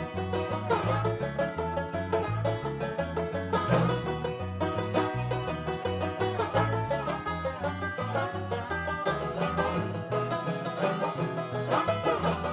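Upbeat bluegrass-style background music with fast-picked strings over a bass line stepping between two low notes.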